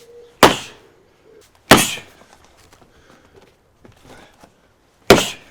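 Three hard blows struck on the steel toe cap of a Caterpillar work boot, each a sharp loud whack with a short ring. The first two come about a second apart and the third after a pause of about three seconds.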